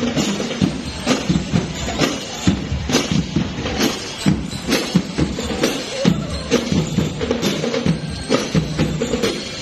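Drum and lyre band playing: drums keep a steady marching beat of about two strikes a second, with pitched notes carried over the beat.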